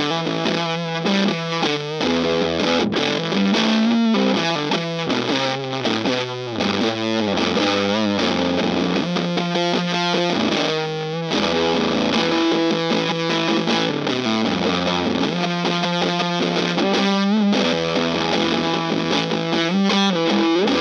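Electric guitar played through the Acorn Circuit Fuzz, a two-transistor fuzz pedal, into an amplifier: continuous distorted, fuzzy riffs and chords.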